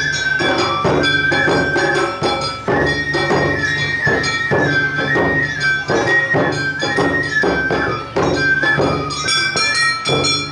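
Awa Odori festival music: a shinobue bamboo flute playing a melody in held notes that step up and down, over a driving beat of taiko drums and the kane hand gong.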